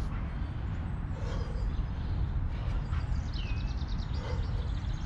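Birds chirping over a steady low rumble of outdoor noise, with a quick run of short chirps and a falling whistle about three and a half seconds in.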